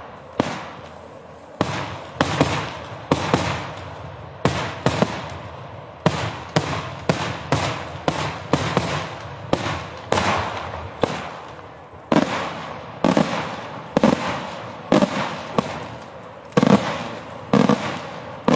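Daytime fireworks: aerial shells bursting overhead in a steady string of loud bangs, about one to two a second, each trailing off before the next.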